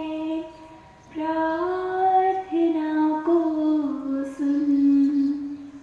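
A girl singing a Hindi prayer song solo and unaccompanied, in long held notes. There is a short breath pause about a second in, and the phrase ends just before the end.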